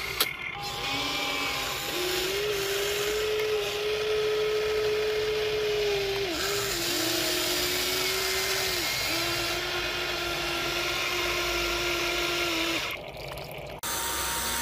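Remote-control toy excavator's small electric motors whining steadily as the arm and bucket move, the pitch dipping and shifting a few times as one movement gives way to another. A sharp click just at the start.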